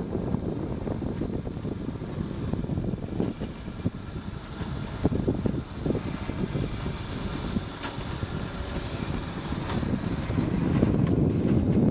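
Rail bike rolling fast along old steel rails: a steady rumble of the wheels on the track, with irregular sharp knocks as it rides over bumps in the rails.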